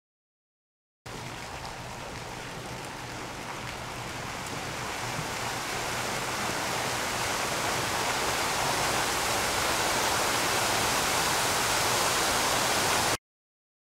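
A steady rushing hiss with no tone or rhythm in it. It starts abruptly about a second in, grows gradually louder, and cuts off abruptly just before the end.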